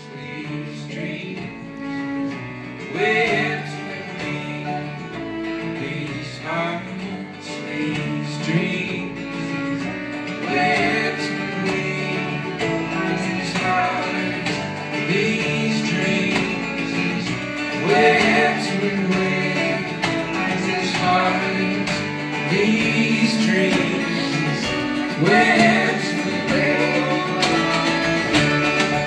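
Acoustic string band playing live, with mandolin, upright bass, acoustic guitar and fiddle behind singing, in a bluegrass-folk style.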